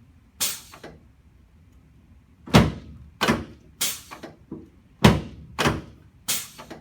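Chiropractic adjustment thrusts on the sacroiliac joints and sacrum, heard as a series of sharp thuds on the treatment table. One thud comes about half a second in, then after a pause of about two seconds about seven more follow, roughly every half second.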